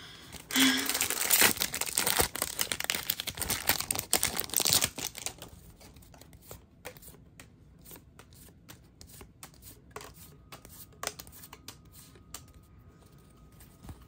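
The plastic wrapper of a trading-card pack is torn open and crinkled for about four seconds. Softer clicks and rustles of the cards being handled follow.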